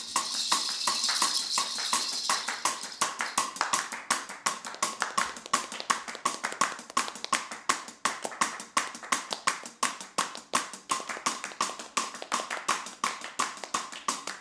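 Several people clapping their hands together in a steady rhythm, about four claps a second, as part of the music. A cymbal rings out over the first two seconds and fades.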